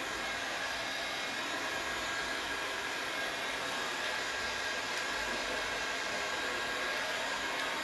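Handheld heat gun running steadily: an even blowing rush with a faint high whine, used to dry still-wet sealer.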